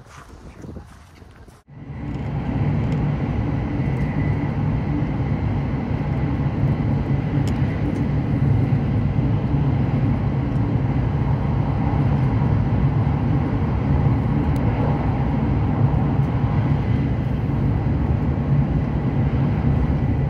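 Steady low rumble of a vehicle running, cutting in suddenly about two seconds in, with a faint thin whine above it.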